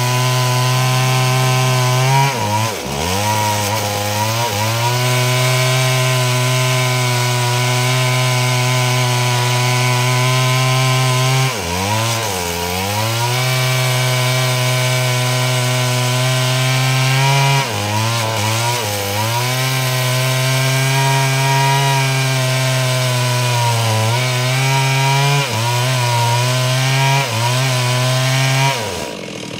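Two-stroke Stihl chainsaw running at high revs under load as it cuts through wood, the engine note sagging and picking up again several times as the cut loads it, then falling away just before the end.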